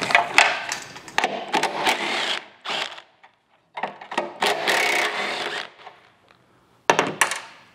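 Cordless drill-driver running in two spells of about two seconds each, backing fasteners out of a small sensor bracket on a sheet-metal car body panel. A few sharp clicks come near the end.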